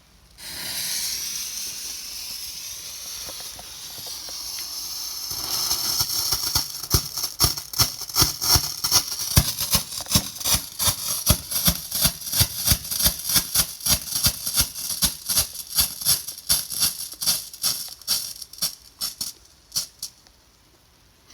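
A 4-gram red strobe firework hisses for about five seconds as it ignites, then pops sharply about three to four times a second for roughly fifteen seconds before stopping, well short of its rated 30 seconds.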